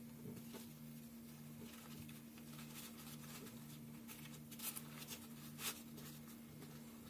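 Soft rustling and crinkling of a lavash flatbread being folded and rolled by hand, loudest in two brief bursts after the middle, over a faint steady low hum that pulses about twice a second.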